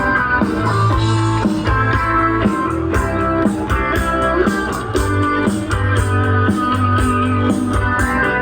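Amplified concert music: instrumental music with a prominent guitar over sustained bass notes and a steady drum beat.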